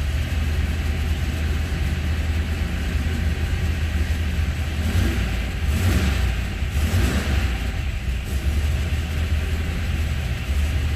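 Rebuilt 1969 Corvette racing V8 running loud and steady on an engine dyno, with a brief swell in the sound about six to seven seconds in.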